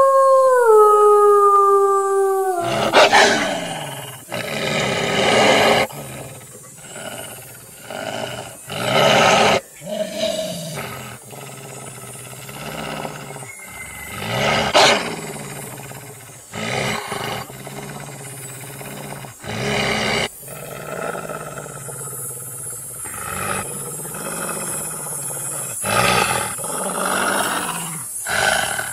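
A wolf's howl, one long held note that dips slightly and breaks off about two and a half seconds in, followed by a long run of harsh, rasping growls and snarls, loud and uneven with short breaks.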